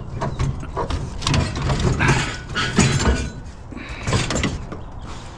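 Metal wire shelving being handled and measured with a tape measure: a run of irregular rattles and knocks, loudest around two and three seconds in.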